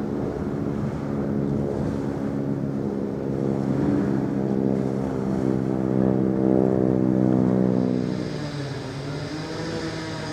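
Steady engine drone of a ship's diesel engines, a low hum with a pitched note in it. It swells towards the middle and drops and changes about eight seconds in.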